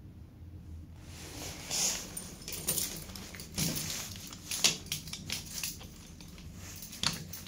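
Keys jangling and clicking as a key is brought up and worked into the elevator's priority-call key switch, with irregular handling rustle. There are several sharp clicks, the loudest about two-thirds in and another near the end.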